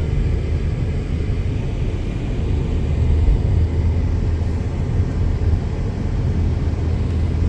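Car driving along a road: steady low engine and road rumble, heard from inside the cabin.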